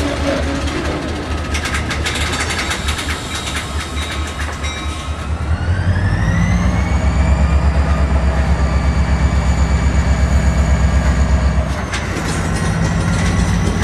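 EMD 645 diesel prime mover running under a locomotive. About six seconds in it grows louder with a pulsing beat, as a whine rises in pitch and then holds steady. Near the end the whine cuts off with a click and the engine drops back.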